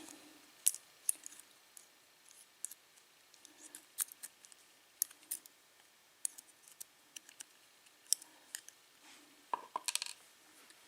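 Light, irregular metal clicks and taps of small padlock pins and tools being handled as the top pins are taken out of the lock body, with a quick run of clicks near the end.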